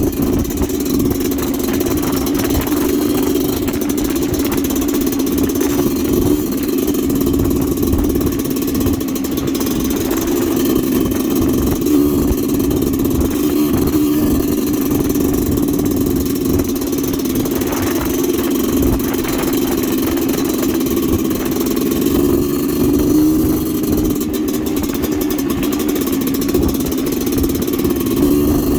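Kawasaki Ninja motorcycle engine, swapped into a TS trail bike, running steadily for the whole stretch with no big revs.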